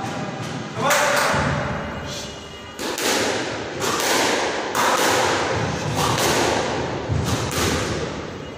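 A squash rally: a string of sharp smacks of the ball off rackets and walls, one every half second to a second, each ringing on in the echo of the walled court.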